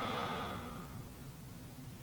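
Faint breath of a snorer in the pause between snores, fading away within the first second.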